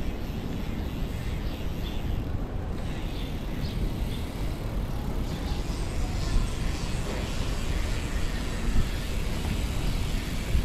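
Steady wind buffeting and road noise picked up by a camera riding on a moving bicycle.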